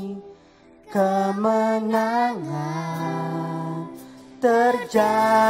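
Worship song in Indonesian: a sung melody with long held, gliding notes over music backing, after a brief pause near the start.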